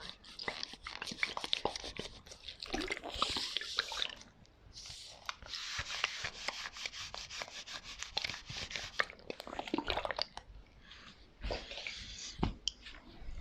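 ASMR tapping and knocking on assorted props: rapid light taps and clicks, mixed with stretches of rustling noise, and one sharper knock near the end.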